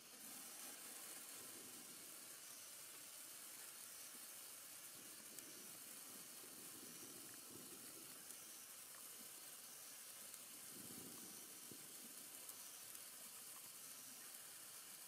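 A 36-inch Morning Glory sparkler burning with a faint, steady hiss, with a few small crackles from the spitting sparks.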